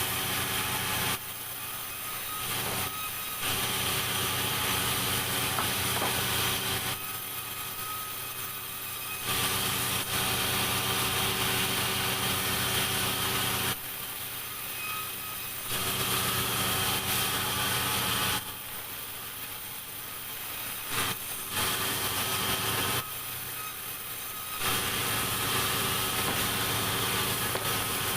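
Sawmill saw running steadily and cutting through a log, with several louder, noisier stretches of a few seconds each as the blade goes through the wood, between quieter spells of the saw running without a cut.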